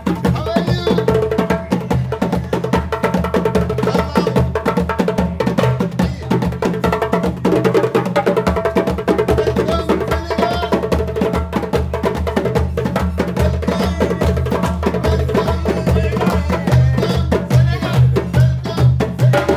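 Three djembe hand drums played together in a fast, steady rhythm of dense hand strokes, with deep bass tones under sharp slaps.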